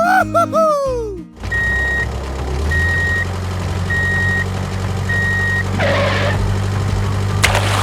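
A quick cartoon-style sound effect of whistle tones sliding up and down. Then a vehicle engine runs steadily while a reversing alarm beeps four times, about once every 1.2 seconds, followed by two short hissing bursts near the end.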